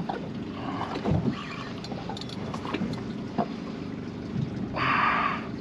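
Boat motor running steadily, with a short burst of hiss about five seconds in.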